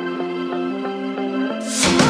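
Background music: soft sustained notes moving in steps, with a swelling whoosh near the end leading into a louder beat.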